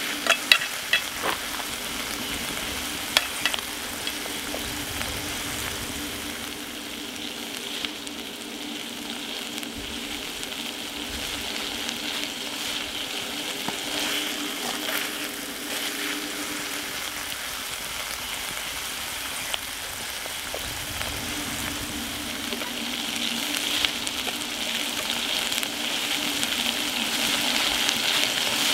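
Rice frying and sizzling in a cast iron skillet, with a few sharp scrapes and taps of a wooden spatula against the pan in the first three seconds. The sizzling grows louder near the end as the rice is stirred again with a wooden spoon.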